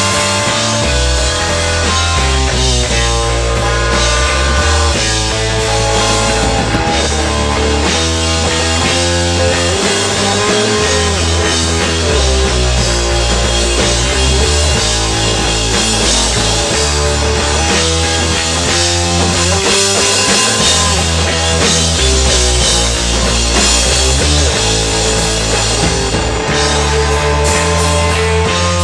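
Rock band playing live, with guitar and drums over a bass line that moves to a new note about every two seconds.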